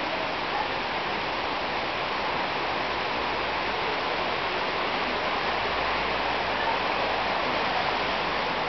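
Heavy rain pouring down in a thunderstorm downpour, a steady even hiss.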